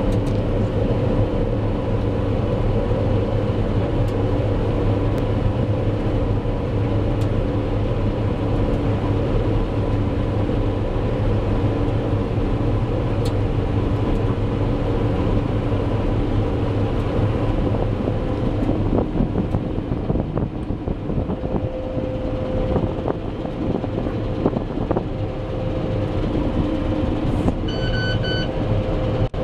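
Claas Lexion 460 combine harvester running steadily while harvesting wheat: a constant machine drone with steady tones. Near the end a short electronic beep sounds for about a second.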